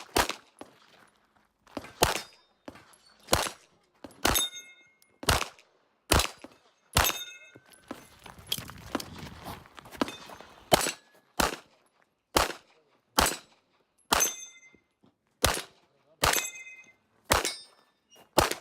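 CZ Shadow 2 9mm pistol firing single shots on a timed course of fire, roughly one shot a second, several followed by a brief metallic ringing tone. Nearly four seconds past the midpoint the shooting pauses, filled with rustling and movement noise, then the shots resume.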